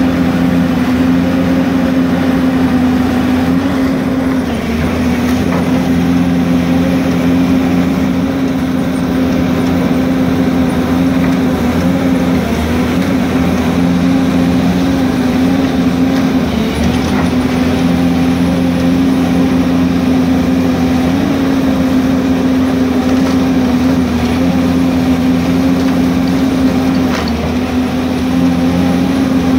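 Tracked demolition excavator's diesel engine and hydraulics running steadily close by, the hum dipping briefly in pitch every few seconds as the grab works. A few faint knocks sound now and then.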